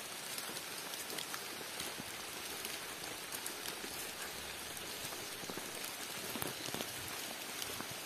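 Steady patter of water drops falling on forest leaves: a dense hiss with scattered sharper ticks from single drops.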